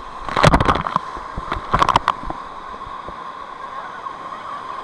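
Whitewater of a river rapid crashing over an inflatable raft: two loud splashes, about half a second and about two seconds in, over steady rushing water.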